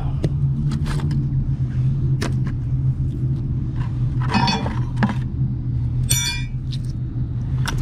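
A steady low motor hum, like a nearby idling vehicle or engine, runs under scattered sharp metallic clicks and clinks from metal finds being handled. A quick rattle comes a little after the sixth second.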